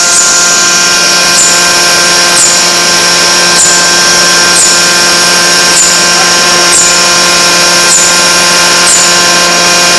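Electric-resistance forging machine running steadily while it heats a steel bar end to forging temperature: a loud, even hum with a hiss, and a faint high tick about once a second.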